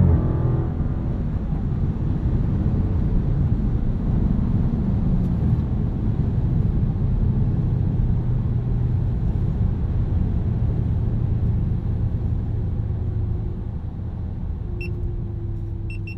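Cabin sound of a 2015 Dodge Charger R/T Scat Pack with its 6.4-litre Hemi V8 cruising at highway speed: a steady low engine drone mixed with road and tyre noise. It grows gradually quieter near the end.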